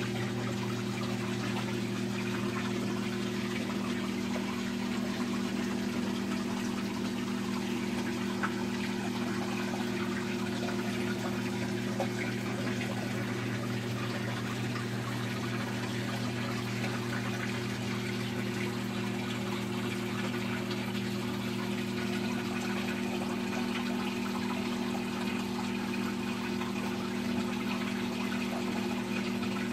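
Saltwater aquarium equipment running: a steady electric pump hum with water circulating and trickling through the tank system.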